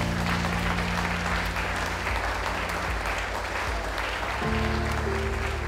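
An audience applauding steadily, with background music of held low chords underneath.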